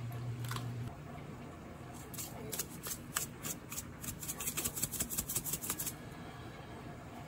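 Metal spoon shaking red pepper powder over bean sprouts in a glass bowl: a quick run of light taps and scrapes, about three or four a second, for several seconds in the middle. A low hum stops about a second in.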